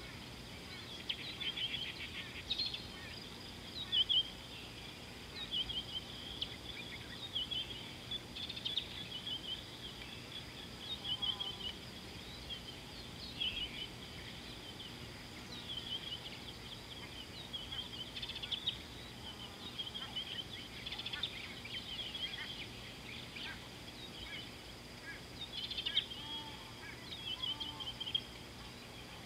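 Wild birds chirping and singing in many short phrases, one after another, over a steady faint background hiss.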